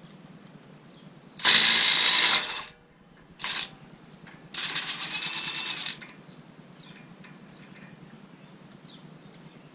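Impact wrench hammering on a 36 mm axle socket to break loose the front axle nut, in three bursts: a long loud one about a second and a half in, a short blip, then a quieter longer run.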